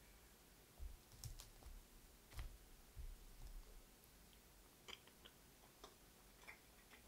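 Near silence broken by faint, scattered clicks and a few soft knocks, the small sounds of eating at a table: utensils touching a dish and chewing.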